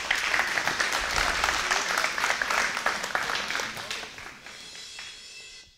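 Audience applauding at the close of a talk, a dense patter of clapping that thins after about four seconds and is cut off just before the end.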